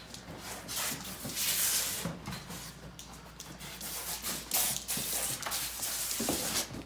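A soft-sided tool bag scraping and bumping along a concrete floor as a dog drags it by its handle, in uneven rasping surges.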